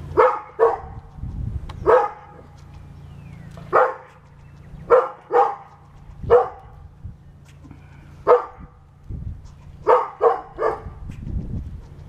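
Dog barking at a squirrel in short sharp barks, some single and some in quick twos and threes, about eleven in all.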